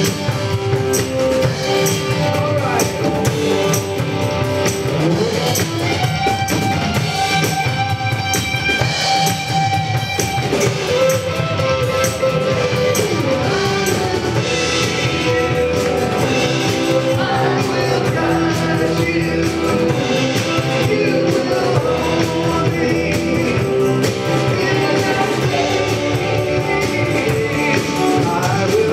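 Live worship band playing: drum kit and electric guitar over sustained chords.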